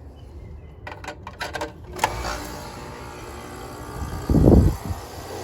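A few clicks, then about two seconds in a sharp click and an air conditioner's outdoor condensing unit starting up with a steady low hum, powered back on after its failed capacitor was replaced. A brief loud low rumble a little after four seconds.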